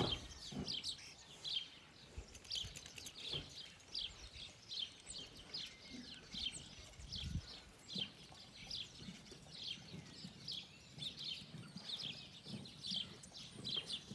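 Small birds chirping over and over, several short high chirps a second, with a few low thuds underneath.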